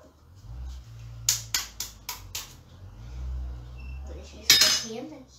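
A raw egg tapped five times in quick succession against the rim of a plastic mixing bowl to crack the shell, then a louder knock about four and a half seconds in.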